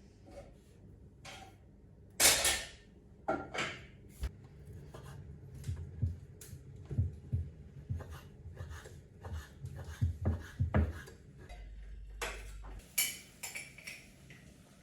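Irregular handling noises of kitchenware: dishes and utensils clinking and knocking, with a few louder sharp knocks and some low thumps.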